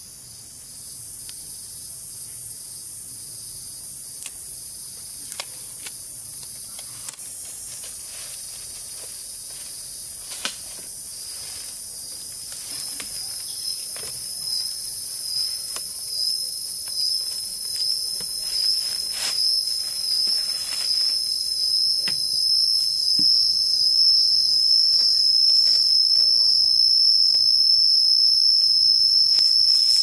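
Steady, high-pitched insect drone that grows louder about halfway through as a pulsing whine joins in. Scattered faint crackles of plastic packing tape being pulled off the roll and wrapped around a pole.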